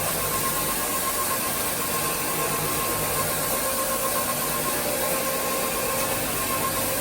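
Electric floor-scrubbing machine running steadily on a pre-sprayed tile and grout floor: a constant motor hiss with a steady hum.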